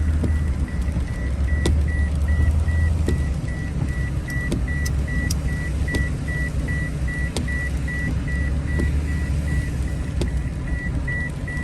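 Low, steady engine and road rumble inside a moving car's cabin, with a seatbelt warning chime beeping quickly and evenly over it because the driver's belt is unfastened. A few faint ticks are scattered through it.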